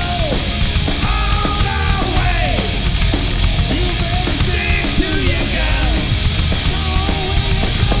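A heavy metal band playing live: distorted electric guitar and drum kit, with a male singer belting the vocal line over them.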